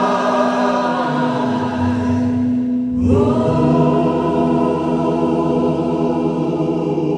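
Gospel choir singing long held notes, moving to a new held chord about three seconds in.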